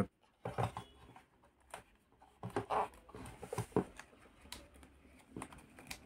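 Faint scattered rustles and soft clicks of a plastic membrane touchpad being handled: its white adhesive backing peeled away and the panel pressed down by hand, with a busier cluster of handling noises in the middle.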